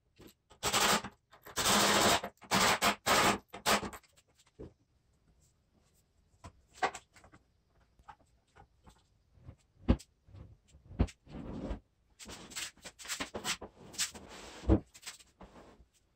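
Workshop work sounds of tools, screws and plywood being handled: a quick run of short scraping bursts at the start, then scattered sharp knocks and clicks, and another cluster of short bursts near the end.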